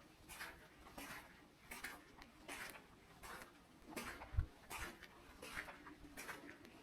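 Footsteps of one person walking at a slow, steady pace on a forest path, each step a short crunch, a little under one a second. A single low thump about two-thirds of the way through.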